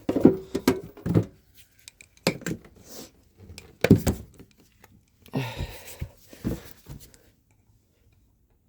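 Irregular hammer blows on a Suzuki two-stroke engine, aimed at freeing a stuck joint that will not separate. About two-thirds of the way through, a few seconds of scraping and knocking follow.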